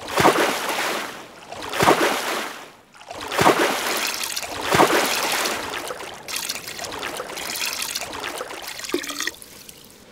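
Buckets of water being scooped and poured out, splashing in four surges about a second and a half apart, then a longer steady pour that stops suddenly near the end.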